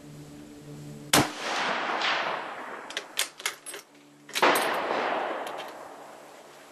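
A shot from a Type 99 Arisaka rifle about a second in, with a long echoing tail, then a few sharp metallic clicks as the bolt is worked, and another gunshot with a long tail about four and a half seconds in.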